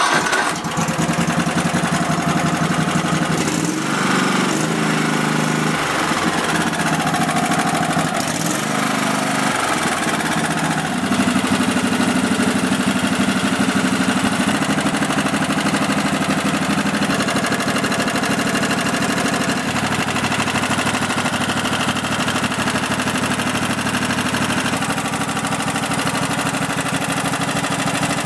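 Kohler V-twin engine of a Husqvarna YTH180 lawn tractor, just started, running. Its speed changes a few times in the first ten seconds, then holds steady and higher without dying, a sign that the starts-then-dies-on-throttle-up fault is cured.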